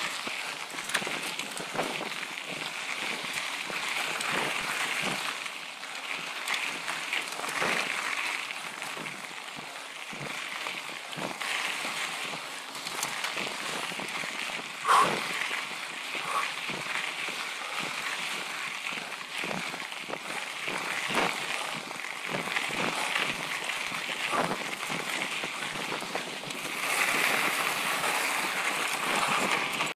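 Mountain bike riding fast over a dirt and rock trail: a steady crunch of tyres with frequent clicks and rattles from the bike, picked up by a handlebar-mounted camera. One short, sharp, high-pitched sound about halfway through, and the noise grows louder near the end.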